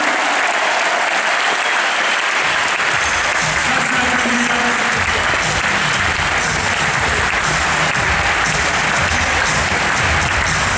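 Arena crowd applauding steadily. Bass-heavy music over the arena speakers joins about three seconds in.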